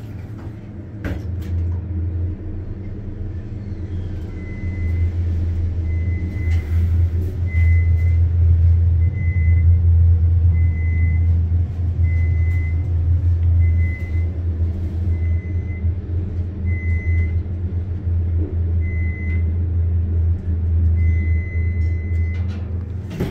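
Vintage Otis elevator car travelling down, a steady low hum that gets louder about four seconds in as the car gets up to speed. A short high beep repeats about once a second through most of the ride, and there is a sharp clunk at the very end as the car arrives.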